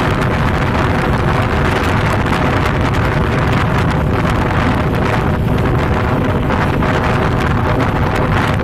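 Wind rushing steadily and loudly over a phone's microphone from a moving vehicle, with the vehicle's low rumble and a faint steady hum beneath.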